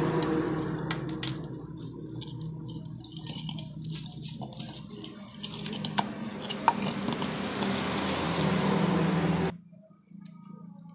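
Hands handling a motorcycle stator, its wiring and rubber grommet inside an aluminium magneto cover: scattered light clicks and rubbing, over a steady low hum that cuts off suddenly about nine and a half seconds in, leaving only faint clicks.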